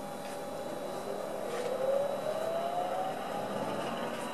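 Old Hitachi 1 hp three-phase induction motor with a grinding wheel on its shaft, spinning up under an inverter. A whine rises steadily in pitch for about two seconds, then it runs on at speed.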